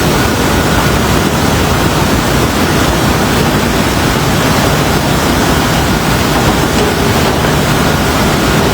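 Fast-flowing floodwater rushing in a loud, steady roar.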